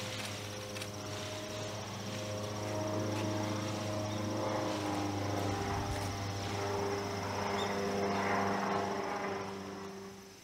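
Insects trilling in a steady high pulse over a low hum of several held tones; the sound drops away suddenly at the end.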